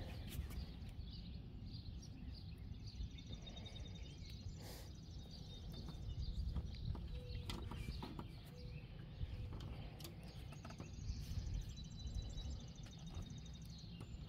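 Quiet outdoor background: a steady low rumble with faint bird chirps and a few light clicks.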